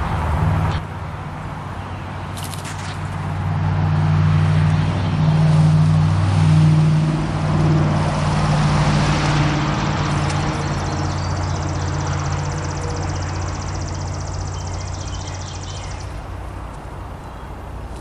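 A road vehicle passing by: engine hum and tyre noise swell to a peak about six seconds in and then slowly fade away.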